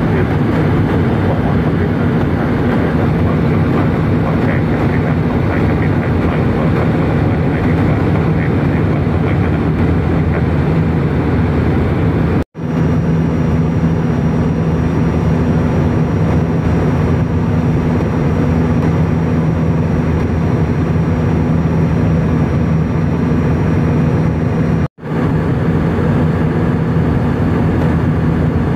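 Airliner cabin noise at cruise: a steady, loud rush of engines and airflow with a low hum. It cuts out for an instant twice, about halfway and near the end.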